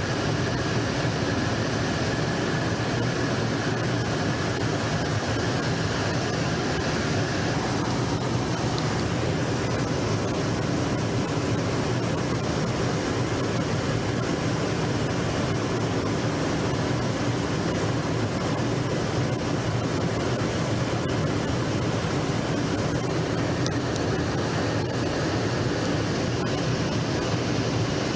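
Steady jet aircraft noise: an even roar of engine and rushing air with no change in pitch, with a faint high tone for about the first eight seconds.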